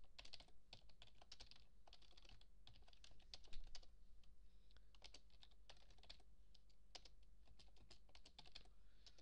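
Computer keyboard being typed on: faint, irregular key clicks in quick runs of a few strokes with short pauses between them.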